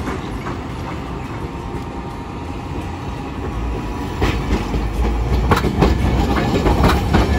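Hiroshima Electric Railway 1900-series streetcar rolling slowly through a curve and over the track junction. From about four seconds in it grows louder as it passes close by, its steel wheels giving a run of sharp clacks over the rail joints and points.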